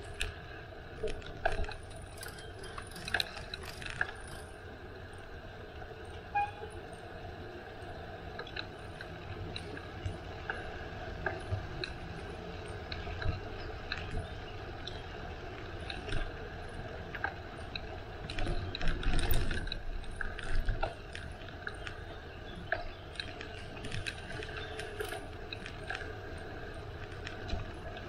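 Bicycle being ridden: the drivetrain and frame rattle with scattered irregular clicks over a steady low rumble of rolling. A louder rumble comes about nineteen seconds in.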